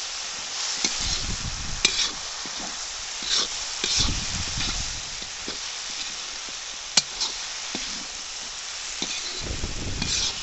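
Chicken pieces sizzling steadily as they are dry-fried (bhuna) in a large kadai, with a perforated metal spatula scraping and clacking against the pan as they are stirred. One sharp clack comes about seven seconds in.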